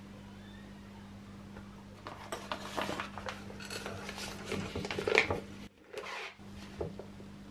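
A silicone piping bag rustling and flapping as hands open it and fold its top over the rim of a drinking glass, with light taps of the glass on a wooden board; it starts about two seconds in, after a low steady hum.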